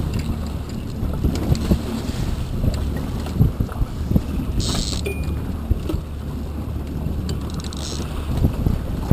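Wind on the microphone over a steady low rumble of a boat on open water, with two short splashes from a hooked fish thrashing at the surface behind the stern, one about halfway through and one near the end.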